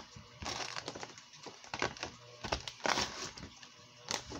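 Plastic soft-bait packaging crinkling and rustling in irregular bursts as it is handled.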